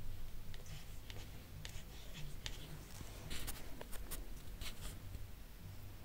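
Felt-tip marker drawing short strokes on paper, with a cluster of louder sharp clicks around the middle, over a faint steady low hum.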